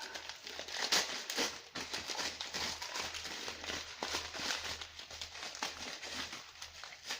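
Paper crinkling and rustling in irregular handfuls, with small crackles, as a wrapped drinking glass is unwrapped by hand.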